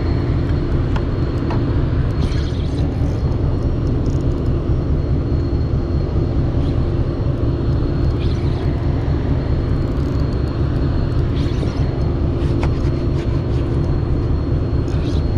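A large engine runs steadily with a low drone and a constant hum, and a few faint short clicks sound over it.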